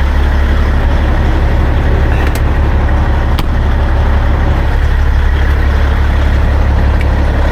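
Peterbilt 389 semi truck's diesel engine idling with a steady low drone, with a couple of light clicks partway through.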